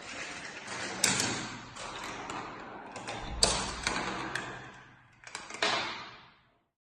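Marbles rolling down a plastic GraviTrax marble run: a rolling rattle broken by sharp clicks as they strike track pieces. It dies away and stops about six and a half seconds in.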